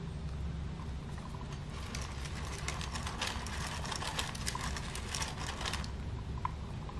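Campbell dwarf hamster scratching and scrabbling, a quick run of clicks and scratches that starts about a second and a half in and stops about a second before the end, over a low steady hum.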